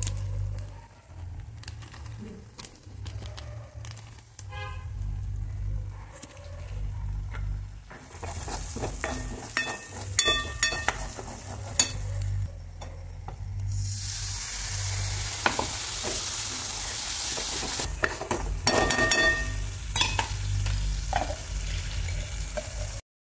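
A steel spoon stirring and scraping a thick spice masala in a metal wok, with clinks of the spoon against the pan, while the masala fries and sizzles in hot oil, the sizzle growing louder in the second half. A steady low hum runs underneath, and the sound cuts off just before the end.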